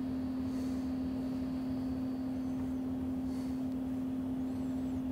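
Switching power supply with a bank of cooling fans running on the bench: a steady hum at one pitch over a soft rushing noise.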